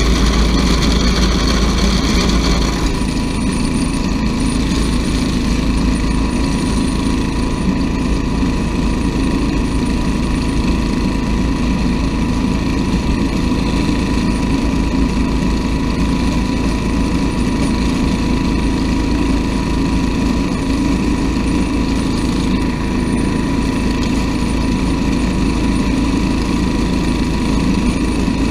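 Riding garden tractor with a rear-mounted rototiller, engine running loud and steady, with a thin steady whine. A harsher, hissing high clatter drops away about three seconds in, leaving the engine's lower, rattling running sound.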